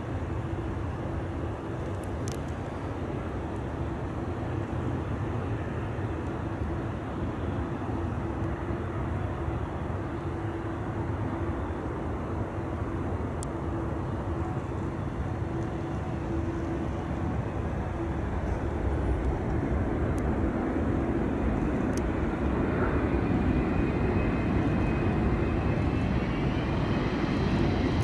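Airbus A380's four jet engines on final approach: a steady rumble that grows louder as the aircraft nears, with a higher engine whine coming in and rising over the last few seconds.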